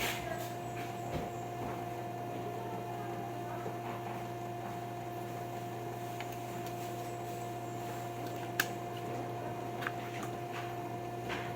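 Steady electrical hum with a few light clicks.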